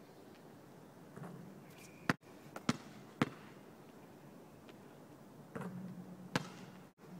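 Basketball striking hard surfaces as it is shot and bounced. A loud hit comes about two seconds in, followed quickly by two bounces, and another single hit comes near the end.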